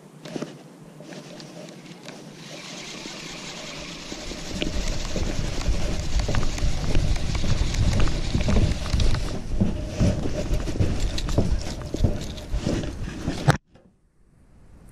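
Wind buffeting the camera microphone as a rumbling rush, with scattered knocks and rustles of handling and movement on a floating dock. It builds over the first few seconds and cuts off abruptly near the end.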